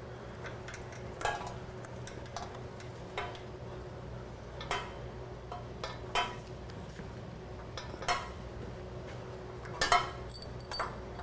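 Light metallic clicks and clinks of hand tools and a metal bracket and bolts being handled, scattered irregularly over several seconds, with a faint steady hum underneath.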